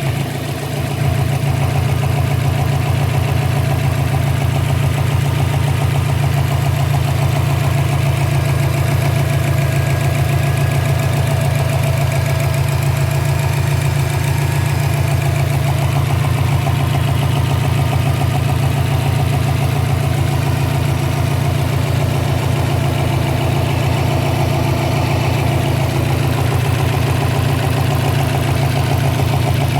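2012 Subaru Impreza WRX's turbocharged flat-four engine idling steadily with a popping noise, which the owner puts down to a loose intake manifold.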